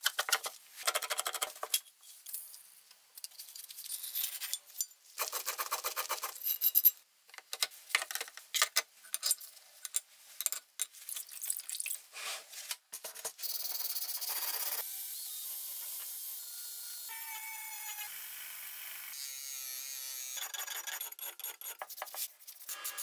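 Workshop sounds of an old hand plane being taken apart and cleaned: many short bursts of scraping, rubbing and filing on metal and wood, each starting and stopping abruptly, with a steadier stretch of rubbing near the middle.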